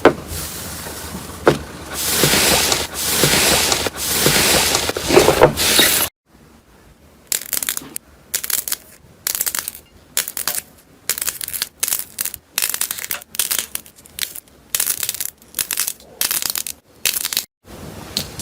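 Slime being squeezed and pressed by hand, crunching and crackling. For about six seconds the crunching is continuous; after a sudden cut it comes as short crackly presses, about two a second.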